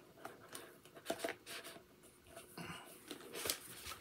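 Faint handling of a small cardboard box: scattered light taps, scrapes and rustles.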